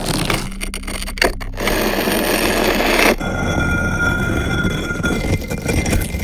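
Stones and debris scraping and rattling: a run of short, different rubble sounds that change abruptly about half a second, a second and a half, and three seconds in, with a few sharp clicks near the start.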